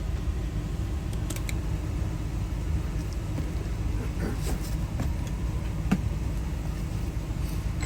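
Steady low rumble with a few light clicks from small lock parts being handled.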